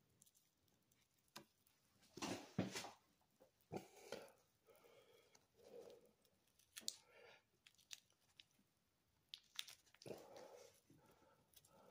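Faint, scattered crackling and rustling of fingers prying apart a dry, fibrous mango seed husk.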